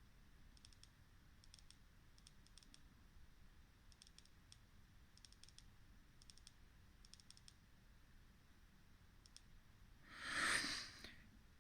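Faint quick high ticks in small clusters, repeating every second or so, from an Olight S1 Baton LED flashlight running in strobe mode. About ten seconds in there is a short breathy rustle.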